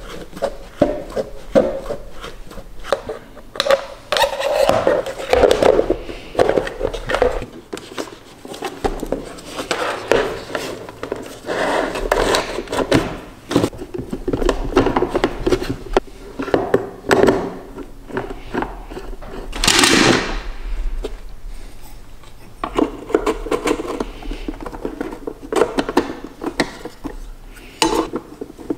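Plastic housing of a Rosewill food dehydrator being handled and screwed together: scattered knocks, clicks and scrapes of the plastic case and of a screwdriver turning screws, with one louder sweep of noise about twenty seconds in.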